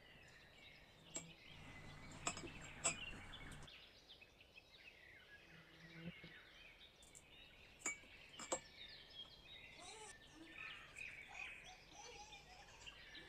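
Fresh dill being stuffed by hand into small glass jars: faint rustling of the stems, with a few sharp clinks against the glass.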